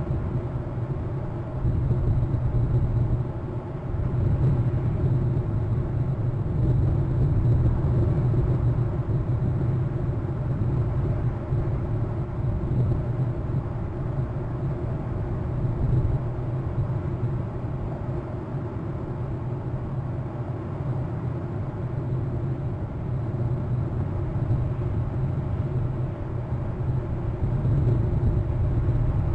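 Steady low rumble of outdoor background noise on a nest-cam microphone, swelling and easing a little, with no eagle calls.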